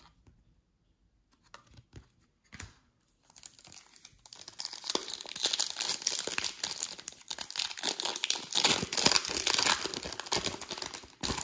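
After a few faint taps of cards being handled, a foil trading-card pack crinkles and tears as it is ripped open by hand. The crinkling starts about three seconds in and goes on as a dense crackle.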